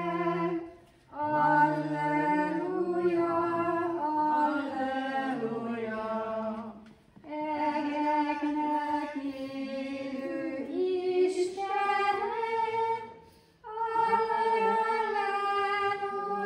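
Women's voices singing a hymn together in church, unaccompanied, in long held phrases with brief pauses for breath between them.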